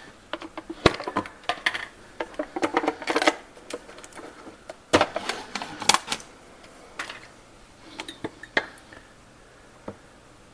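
Plastic lid worked off a tin of cocoa powder, then a measuring cup and spoon scooping in the powder: a scattered run of sharp clicks, knocks and scraping rustles that thin out near the end.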